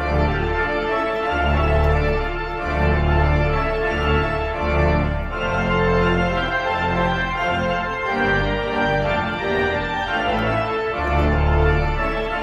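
Church organ playing sustained chords over deep bass notes that change every second or so.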